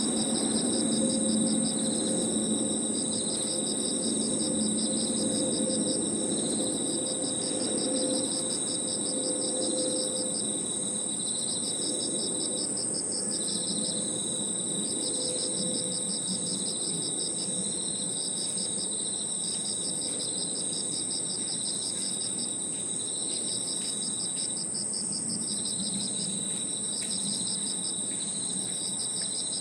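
Chorus of crickets and other insects: a steady very high trill, a lower steady trill that breaks off briefly twice, and a rapidly pulsing chirp between them. Under it runs a low background rumble, stronger in the first ten seconds.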